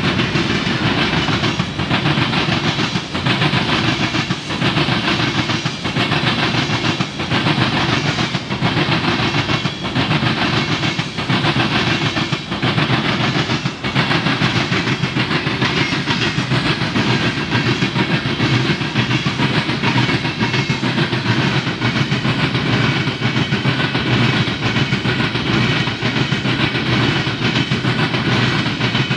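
Mixed freight train's cars (covered hoppers, tank cars, then refrigerated boxcars) rolling past: steady rumble and clatter of steel wheels on rail.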